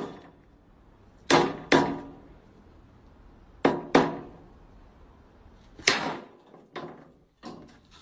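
Sledgehammer striking the top of an upright pole set in a metal ground socket: about seven sharp blows, mostly in pairs about half a second apart, each with a short ring.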